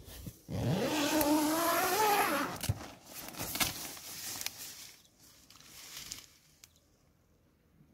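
Tent door zipper pulled open in one long rasp whose pitch rises as the pull speeds up, then the nylon door fabric rustling and flapping as it is pushed aside, with a few light clicks.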